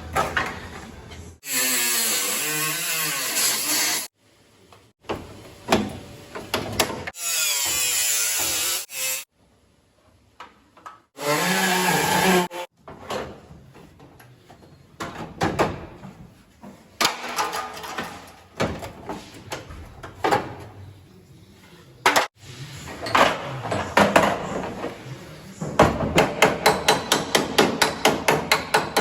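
Auto body repair work: a power tool runs in three bursts of a few seconds each, its pitch wavering under load. Scattered hammer blows follow, ending in a fast run of three or four strikes a second near the end.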